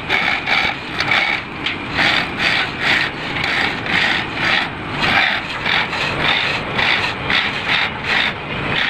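Chain block's hand chain being pulled hand over hand to lower a transmission: a rhythmic metallic rattling and scraping, about two strokes a second.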